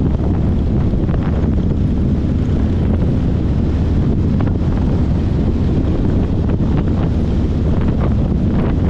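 Wind buffeting the microphone: a loud, steady low rumble that holds unchanged throughout.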